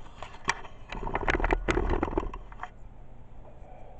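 Handling noise from a webcam being repositioned: a quick run of clicks, knocks and scraping on the microphone with a low rumble in the middle, stopping about two and a half seconds in, after which only a quiet room hum is left.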